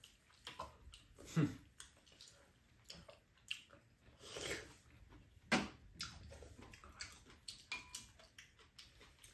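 Two people eating at a low table: quiet chewing and scattered light clicks of spoons and chopsticks against bowls, with one sharper clink about five and a half seconds in.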